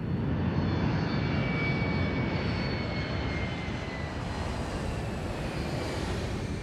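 Aircraft engine noise: a loud, steady rush with a faint high whine that falls slightly in pitch. It starts abruptly and eases a little toward the end.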